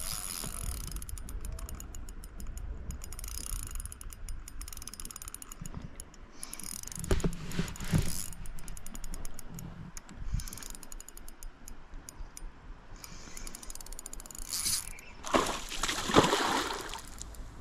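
Shimano Stella spinning reel clicking and ratcheting as its drag and gears work against a hooked trout on a light spinning rod. Near the end there is a loud splash as the trout thrashes at the surface.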